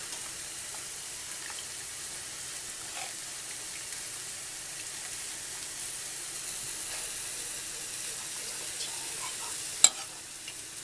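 A steel ladle serving curry from a steel pan onto a ceramic plate, with a few faint scrapes and one sharp clink about ten seconds in, over a steady sizzling hiss from the hot pan.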